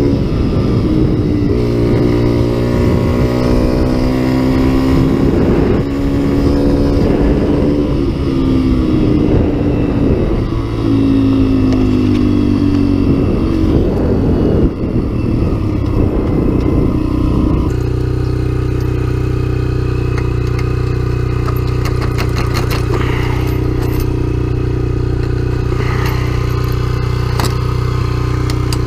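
Small off-road vehicle engine, most likely an ATV, running as it rides on gravel, its pitch rising and falling with the throttle. About 18 seconds in it settles to a steady idle. Near the end, clinking of a chain and metal gate being unlatched is heard over the idle.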